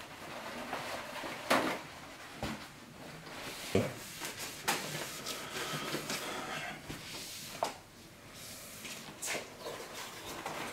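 Paper towel rustling as it wipes across a wooden tabletop, with several sharp knocks and clatters of cut carrot pieces being handled on the table.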